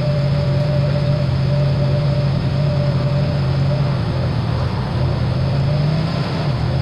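1987 Ford Bronco II's 2.9-litre V6 idling steadily while its ignition timing is set to 10 degrees before top dead center; the idle pitch shifts slightly near the end.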